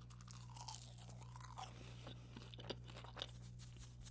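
A person chewing crispy fried fast food close to the microphone: soft crunches and wet mouth clicks, over a faint steady low hum.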